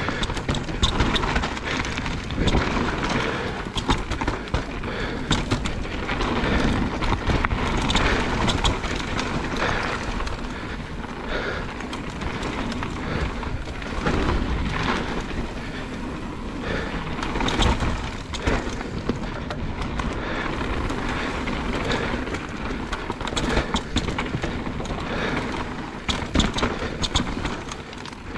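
Mountain bike riding down a rough dirt trail: steady tyre noise with constant rattling and many small knocks from the bike over stones and roots.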